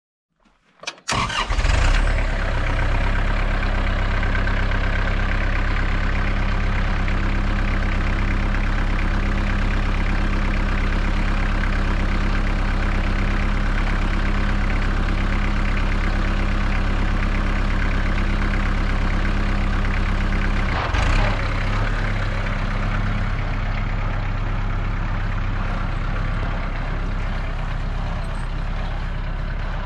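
Tractor engine starting about a second in, then running steadily. Around two-thirds of the way through there is a brief surge, after which it runs slightly lower.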